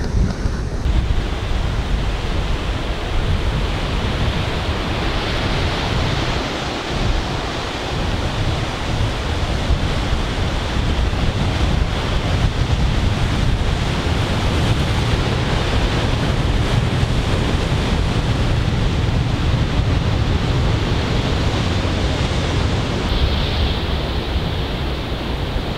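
Steady rushing noise of sea surf breaking against rocky cliffs, mixed with wind buffeting the microphone.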